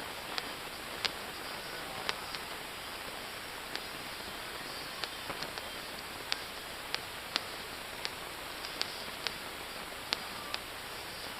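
Distant fireworks going off as scattered, irregular sharp pops, about sixteen in all, over a steady hiss.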